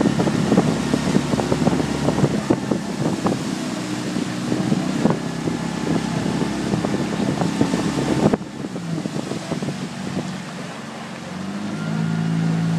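Outboard motor running steadily under a dense crackle of wind buffeting the microphone. About eight seconds in, the noise drops off suddenly, and the motor's hum rises again, louder, near the end.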